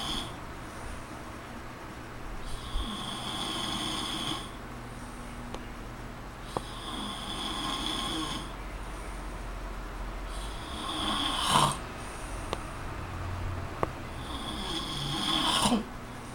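A man snoring in his sleep: four long snores about four seconds apart, the last two swelling to a sharp louder peak as they end.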